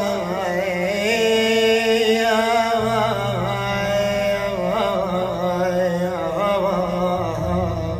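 A male munshid sings a long, wavering, ornamented vocal line in Iraqi chant style. Beneath it a steady low accompaniment holds, changing pitch about three seconds in and again near the end.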